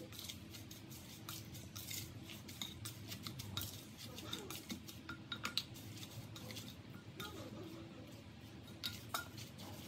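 Plastic spatula stirring and tossing chopped greens in a black pot, knocking and scraping against the pot's side and bottom in a run of irregular light clicks.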